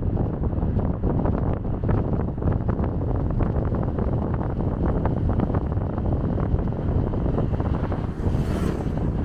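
Strong wind buffeting the microphone: a loud, low rumble with constant crackling gusts.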